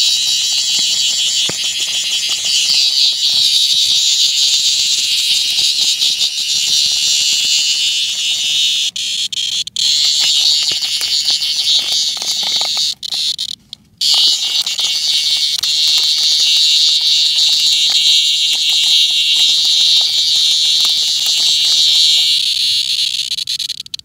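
A male cicada giving its really loud, continuous, high-pitched buzzing call as it is handled, the squawk it makes when disturbed. The buzz cuts out briefly twice, about ten and fourteen seconds in, and stops near the end.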